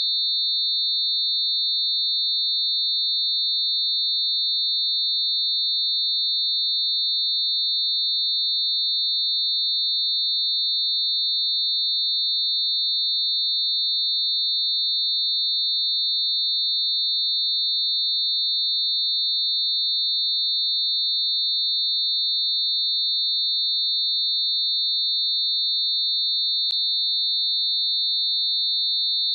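A synthesized mix of several closely spaced steady pure tones around 4 kHz, a high-pitched unbroken whine that holds level and pitch throughout. A single faint click sounds near the end.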